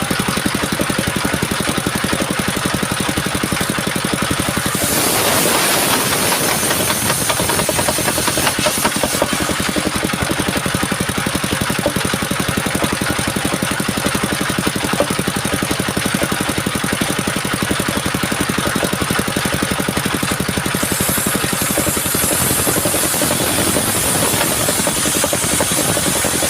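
Engine-driven homemade circular sawmill running steadily while sawing coconut wood. The sound changes, growing brighter, about five seconds in and again near the end.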